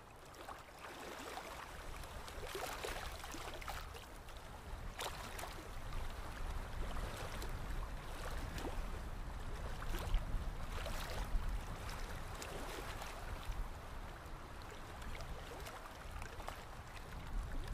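Small splashes, slaps and wet rustling as hands scoop small flapping fish out of shallow water on a fishing net and plastic sheet, with many short clicks and patters throughout.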